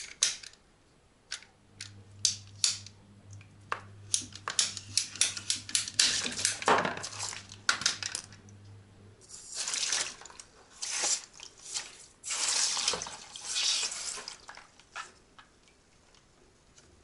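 Heating-system water spurting under pressure from an open polypropylene pipe end into a plastic basin, in several rushing spurts through the second half. Before them, a run of small clicks and knocks as the pipe end is handled with a metal tool.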